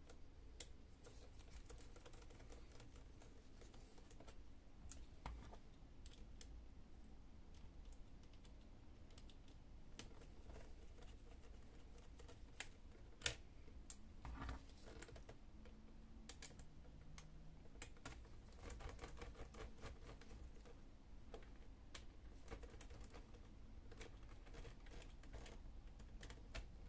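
Faint, scattered clicks and ticks of a small screwdriver turning out the tiny screws that hold a laptop's display to its metal brackets, with one sharper click about halfway through.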